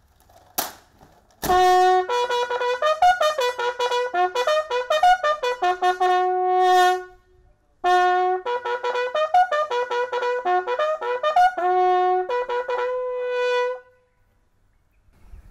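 A military bugle call: fast repeated, tongued notes jumping between a few fixed pitches, in two phrases with a short break between them. Each phrase ends on a long held note. A single sharp knock comes just before the call starts.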